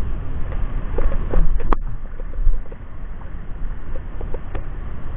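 Small waves lapping and splashing close to the microphone in irregular little plops, over a steady rumble of wind. One sharp click about a second and a half in.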